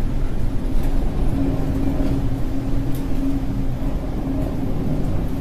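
Boat engine running steadily: a low drone with a constant hum.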